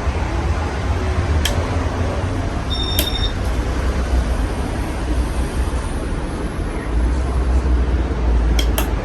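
A 53-inch Casablanca Halogen Star ceiling fan running with five blades: a steady rush of moving air with a low, uneven rumble that swells now and then. A few sharp clicks sound over it, one about a second and a half in, one near three seconds and a couple near the end.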